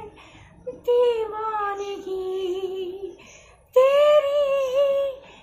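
A woman singing unaccompanied in long held notes: one phrase that gently falls, then after a short breath a second phrase that comes in louder about four seconds in.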